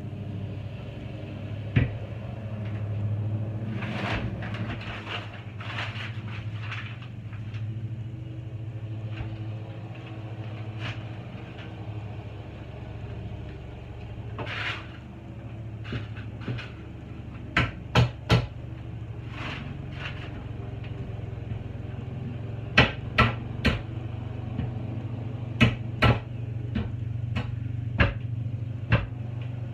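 Irregular sharp knocks and clicks, some in quick pairs, over a steady low hum.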